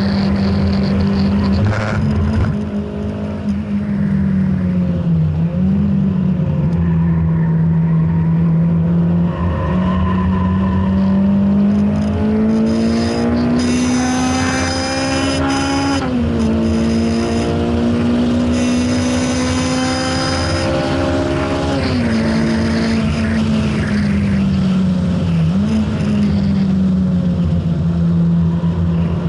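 Honda Integra DC5's four-cylinder engine heard from inside the cabin while lapping a circuit. The revs hold steady for several seconds, then climb. They drop sharply at a gear change about halfway through and climb again, then fall away as the car slows and settle into a steady lower note.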